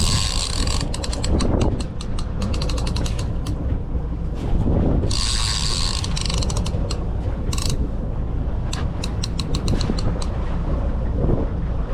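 Fishing reel clicking in quick runs of ratchet-like clicks while a hooked bluefish is being fought, with a few short rushes of noise in between.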